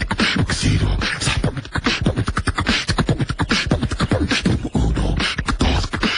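Beatboxing: rapid vocal percussion of clicks and hissing snare-like sounds over low kick-drum thumps, stopping abruptly.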